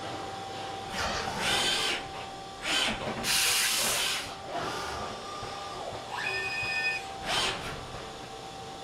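HORKOS NJ60 machining center running with a steady high whine, broken by five short hissing blasts of air, the longest about three seconds in. About two-thirds of the way through comes a brief high mechanical whine of several tones.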